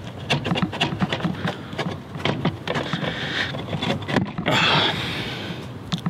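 Plastic dash trim panel of a Ford FG Falcon being pried and handled by hand: a quick run of small plastic clicks and taps, then scuffing and rubbing noises twice in the second half.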